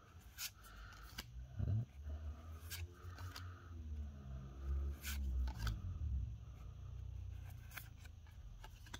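Pokémon trading cards being handled and slid one behind another in a hand-held stack. There are several sharp clicks as the card edges snap past each other, over soft rubbing and low handling noise.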